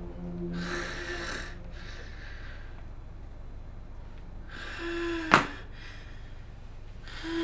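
A woman breathing heavily, with several loud, airy breaths and sniffs, and a sharp click about five seconds in. Soft sustained music notes play at the start and again near the end.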